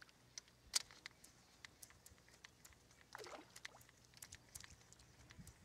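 Near silence with faint scattered clicks and ticks from a fishing rod and reel as a lure is worked back, and a sharper click about three-quarters of a second in.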